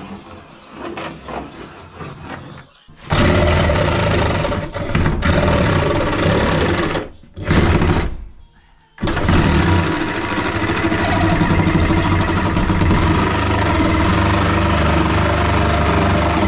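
A DeWalt cordless reciprocating saw cutting a round hole through a plywood wall. It starts about three seconds in and runs loudly, stopping briefly a few times between strokes, then cuts steadily to the end.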